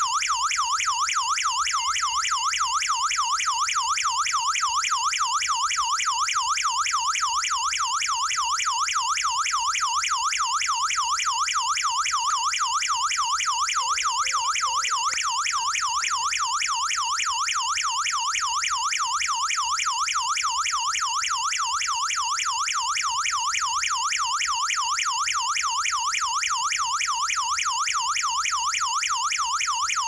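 HOMSECUR LD02-4G burglar alarm siren sounding continuously in a rapid electronic warble, its pitch sweeping up and down many times a second: the alarm has been triggered with the panel's SOS button.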